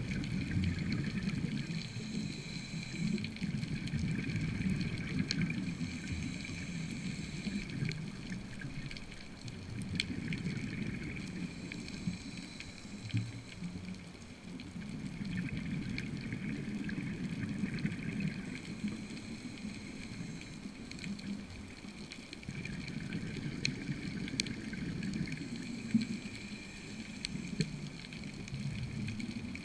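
Underwater sound of a scuba diver breathing through a regulator: bubbles gurgle on each exhale and the regulator hisses on each inhale, the sound swelling and fading every few seconds.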